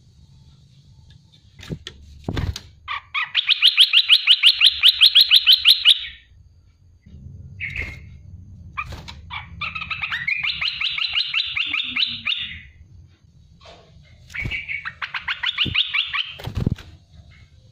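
Olive-winged bulbul singing: three long, fast trills, each a rapid run of notes lasting one and a half to three seconds, with short single notes in between. The trills start about three, ten and fifteen seconds in.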